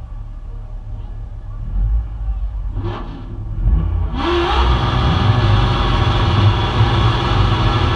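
A car engine idling with a low rumble and a short rev about three seconds in. From about four seconds in, a much louder engine is held at high revs with a hiss over it.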